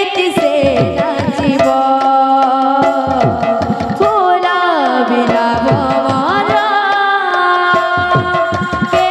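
Kirtan music: a sung melody over steady held notes, with barrel drums beating low strokes that bend down in pitch. Through the middle the singing glides and bends in long ornamented phrases.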